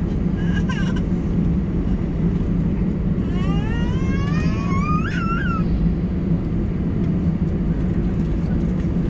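Steady low drone inside the cabin of an Airbus A320 taxiing, its engines running at low power. About three seconds in, a rising, wavering high-pitched tone sounds for about two seconds over the drone.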